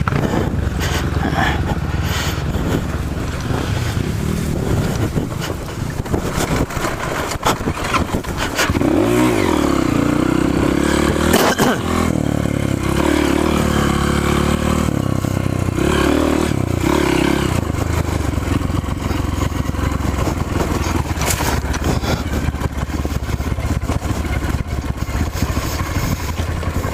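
Trail motorcycle engine running, revved up and down repeatedly between about 9 and 17 seconds in.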